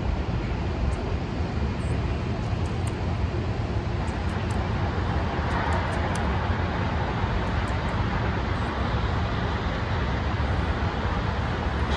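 Steady low rumble and hiss of outdoor background noise.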